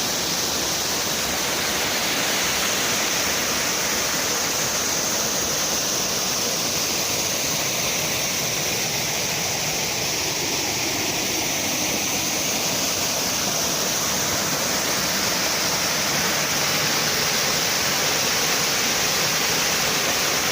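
Small waterfall: falling water splashing with a steady rushing hiss.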